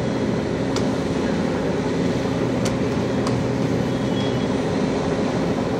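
An engine of the fire equipment at the scene running steadily at an even low drone. A few faint sharp clicks come through, about a second in and near the middle.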